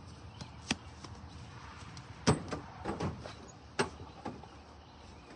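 A series of knocks and clunks from a John Deere Gator utility vehicle's cab as someone climbs in and settles into the seat, the loudest about two seconds in, over a steady low background noise.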